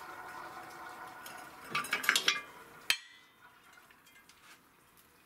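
Steel press adapters and a Toyota Camry front suspension control arm clanking against each other and the steel bed of a hydraulic shop press, as the arm is lifted off after its bushing has been pressed out. There is a cluster of metal clanks about two seconds in, then one sharp ringing clink near the three-second mark.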